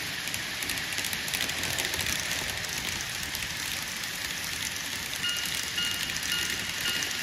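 Model train running past on the layout's track: a steady high hiss of wheels and motor, with a dense patter of small clicks from the wheels on the rails.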